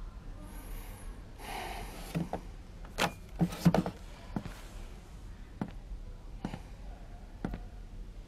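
A short rustle, then a few knocks as someone rises from a wooden chair at a desk, followed by hard-soled footsteps on a hard floor, about one step a second.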